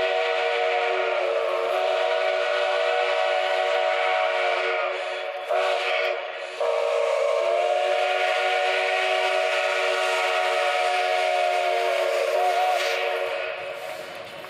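Mogiana steam locomotive No. 761 sounding its steam whistle as a warning at a level crossing: a long blast, a short break with a brief blast about halfway through, then a second long blast that fades near the end.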